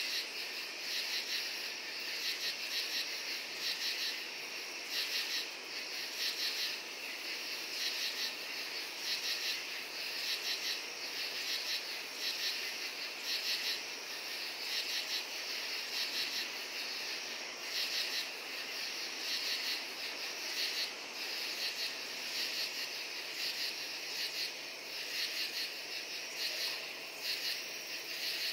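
Crickets and katydids calling together in a dense, high-pitched chorus. A steady trill runs underneath, with pulsing calls repeating about once a second.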